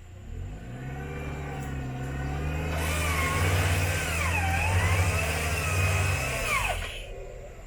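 Off-road 4x4's engine running under load, building up over the first couple of seconds. From about three seconds in, a hiss and a whine that wavers up and down join it, then drop away about a second before the end.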